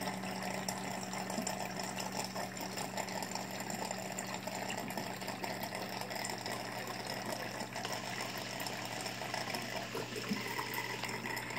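Reef aquarium running: a steady rush of circulating water over a low, steady pump hum.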